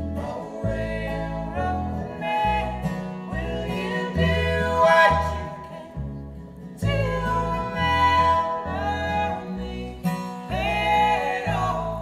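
Live acoustic bluegrass/folk trio playing: a woman sings lead over strummed acoustic guitar, a resonator guitar and an upright double bass walking through low notes that change about every half second.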